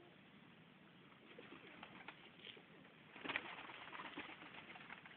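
Serbian highflyer pigeons cooing faintly, with scattered small clicks and a short louder noise about three seconds in.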